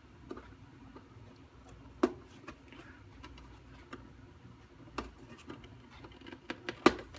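A few scattered light clicks and knocks of plastic parts being handled inside a Zebra desktop label printer while its cable harness connectors are worked loose from the main board, the sharpest click near the end.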